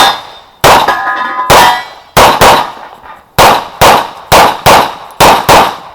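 CZ Shadow 2 9mm pistol fired in quick strings, about eleven shots, several as fast pairs. A shot hitting a steel target near the start leaves it ringing for a moment.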